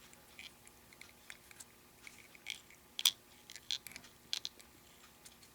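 Faint, irregular small clicks and ticks of fly-tying tools and materials being handled while thread is wrapped onto the fly, the sharpest click about three seconds in.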